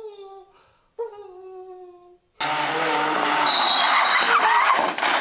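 Two howls, each falling slightly in pitch: the first fades just after the start and a shorter second one follows about a second in. At about two and a half seconds a much louder, dense rushing noise with a low hum and a gliding whine cuts in suddenly and runs on.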